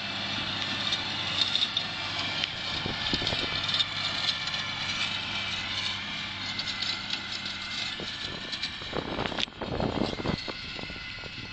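Diesel engine of a Fendt tractor pulling a forage loading wagon, running steadily as it passes and draws away, its hum fading over the second half. There is a brief rush of noise about nine seconds in.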